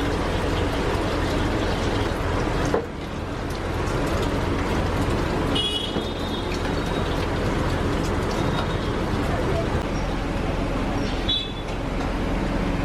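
Steady roadside traffic noise with a low hum and background voices, and short high-pitched toots, like vehicle horns, about six seconds in and again near the end.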